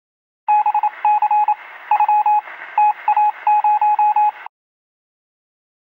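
Radio receiver sounding the balloon payload's tracking transmitter: quick groups of short beeps at one pitch over radio hiss, lasting about four seconds and cutting off suddenly.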